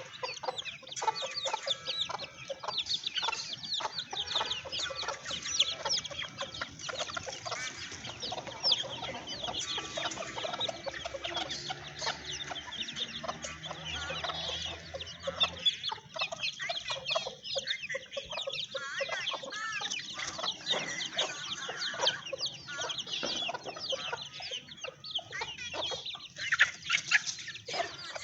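Chickens clucking continuously, with many short, high calls overlapping one another.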